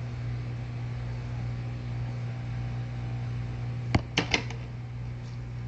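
Heat gun blowing with a steady hum. About four seconds in, three sharp clicks in quick succession, like hard objects knocking together.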